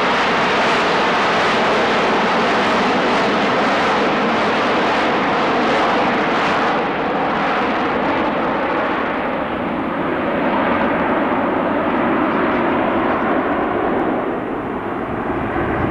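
Jet noise from the eight turbojet engines of a Boeing B-52G Stratofortress making a low pass overhead, a loud steady rush. From about seven seconds in the high end fades as the bomber banks away and recedes.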